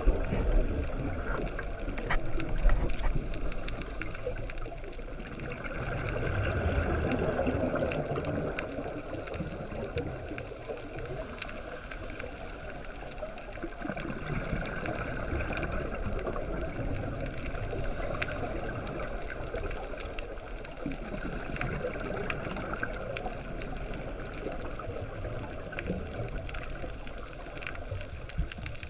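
Scuba diver's regulator breathing underwater: inhalation hiss and gurgling exhaled bubbles, coming and going in slow swells every few seconds.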